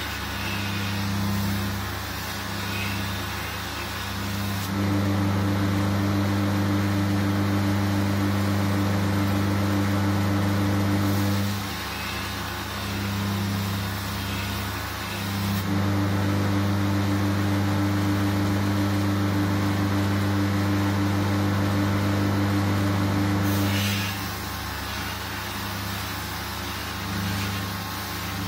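Belt grinder grinding the edge bevel of a shashka sword blade, a steady motor hum under the rasp of steel on the abrasive. The grinding swells louder in two long passes of about seven seconds each, one about five seconds in and one about sixteen seconds in, and is quieter between them.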